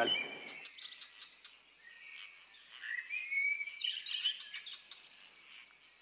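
Garden ambience: small birds chirping and twittering, livelier about halfway through, over a steady high-pitched insect trill like a cricket's.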